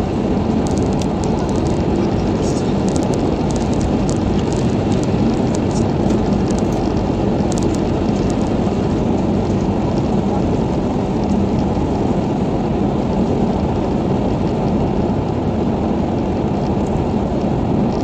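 Steady road and tyre noise inside a car cruising on a wet highway, with light scattered ticks through the first half.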